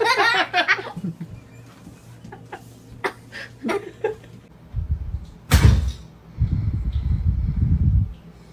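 Brief laughter at the start, then a few light clicks, and a loud thump about five and a half seconds in, surrounded by about three seconds of low rumbling noise that stops near the end.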